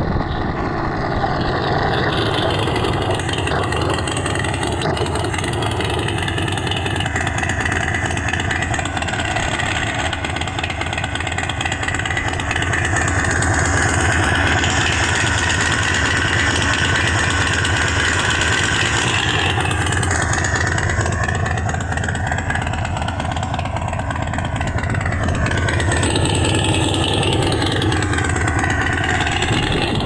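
Synthesized chopper-motorcycle engine sound from a phone app, played through a portable speaker on an electric scooter. It runs continuously, and its pitch rises and falls in the second half as it follows the scooter's speed.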